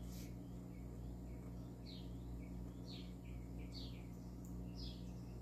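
A bird chirping faintly: five short calls falling in pitch, irregularly about a second apart, over a steady low hum.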